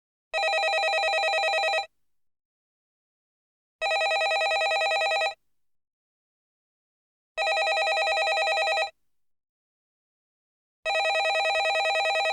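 Landline telephone bell ringing: four rings, each about one and a half seconds of rapid trilling, one every three and a half seconds with silence between.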